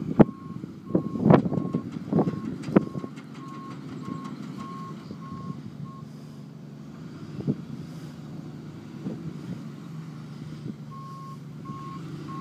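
Flatbed tow truck's backup alarm beeping about twice a second over its steady engine, as the truck tries to reverse out of soft sand where it is stuck. The beeping stops about six seconds in and starts again near the end; a few sharp thumps come in the first three seconds.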